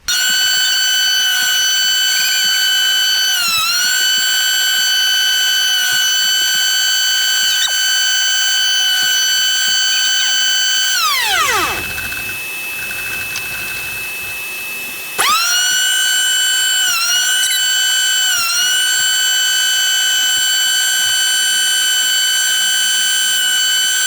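Einhell TC-SP 204 planer thicknesser's motor running with a high, steady whine, dipping briefly in pitch a few times as the cutter takes wood. About eleven seconds in it is switched off and its pitch falls away as it runs down; about four seconds later it starts again and runs on.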